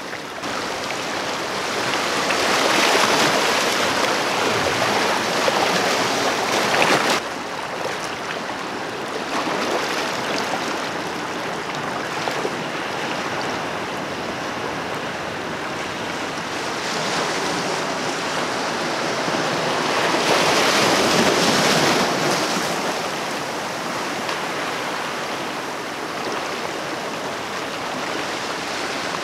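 Sea waves washing in over a rocky shore, a steady rush of water that swells twice as waves surge over the rocks; the first surge cuts off suddenly about seven seconds in.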